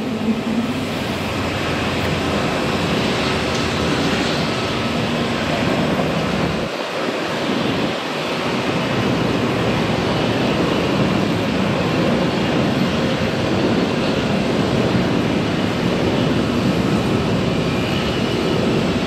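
Airbus A320's two IAE V2527-A5 turbofan engines running at low taxi power, a steady jet rush with faint tones.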